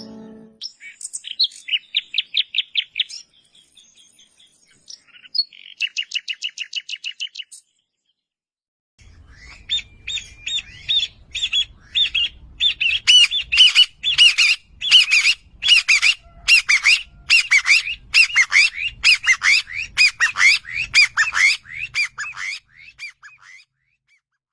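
Birds calling: a quick run of chirps, then a fast rattling trill. After a short pause comes a long series of loud, harsh squawking calls, several a second, that stops shortly before the end.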